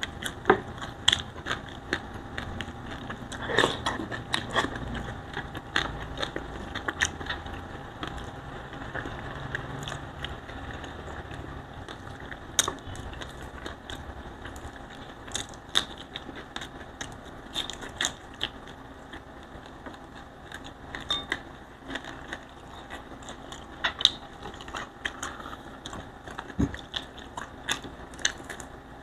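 Close-up eating sounds: chewing and lip smacks, with irregular sharp crackles as crisp fried tilapia and its bones are picked apart by hand.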